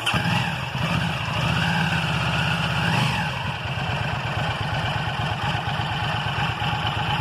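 Home-built 75-degree V-twin motorcycle engine with carburettors and points ignition, just started: it takes a brief blip of throttle about three seconds in, then settles to an idle with a steady pulsing beat.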